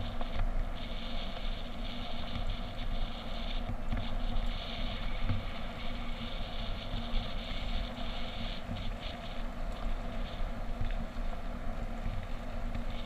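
A vehicle running steadily: continuous low noise with a faint steady hum and a hiss that swells and fades now and then.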